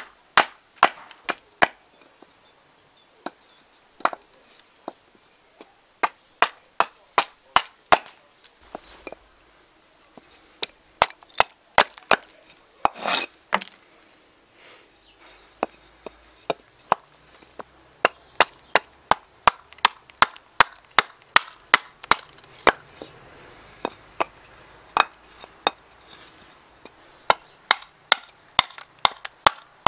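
An axe chopping a seasoned spalted alder blank on a chopping block: sharp strikes of steel into hard dry wood, about two a second in runs with short pauses.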